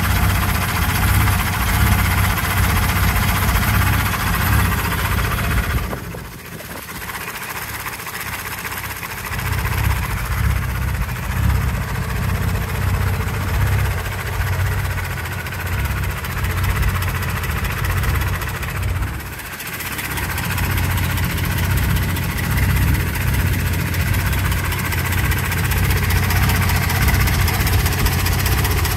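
Jeep engine running at idle with a rapid, steady knock, which the owner takes for a knocking bottom end. The sound drops briefly twice, about six seconds in and again near twenty seconds.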